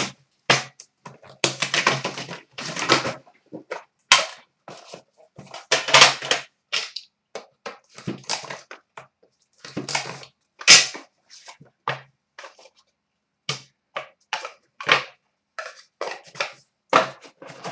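A sealed 2011-12 Panini Dominion hockey card box being unwrapped and opened by hand: irregular crinkling of plastic wrap with scrapes and knocks of the box and its lid.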